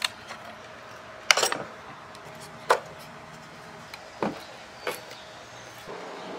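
Old wooden chair joints cracking and knocking as a small flat pry bar levers them apart: five sharp cracks about a second apart, the loudest a short rattling cluster about a second in.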